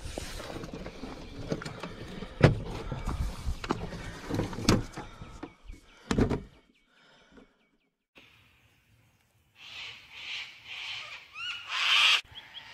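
Aluminium folding camp table being folded up: clatter and a few sharp knocks from the hinged metal frame. After a brief silence, birds call with a run of rising chirps.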